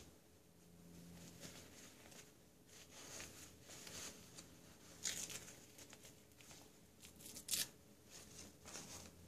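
Faint rustling and crinkling of a disposable diaper being taken off a doll and handled, with a few sharper crackles, the loudest a little after seven seconds in.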